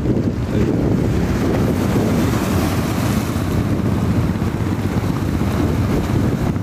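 Wind buffeting the microphone over surf breaking on the beach at high tide: a steady, loud rumbling noise with no distinct events.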